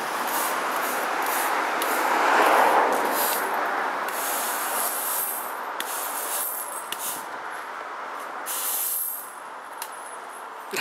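Stiff-bristled push broom sweeping across concrete paving slabs: a steady scratchy brushing, loudest about two to three seconds in and quieter near the end.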